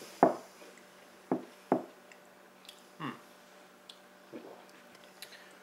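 A sharp thump near the start, then a few short, scattered mouth sounds: lip smacks and breaths from people who have just swallowed a shot of whiskey.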